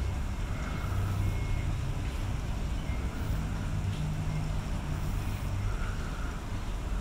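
Steady low background rumble with a faint constant hum, machine-like or wind-like; no distinct sound from the grooming red panda stands out.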